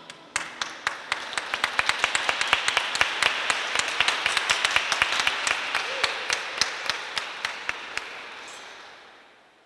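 Audience applauding at the end of a song, with many sharp single claps standing out; the applause dies away near the end.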